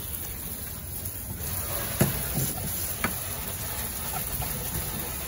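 Tap water spraying from a sink faucet onto an opossum carcass being rinsed in a utility sink, a steady hiss. There is a sharp knock about two seconds in and a couple of lighter ones about a second later.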